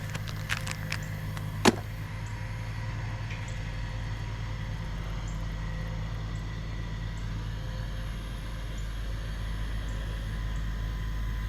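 Steady low mechanical hum, like an idling engine, with a few light clicks in the first second and one sharp click just under two seconds in.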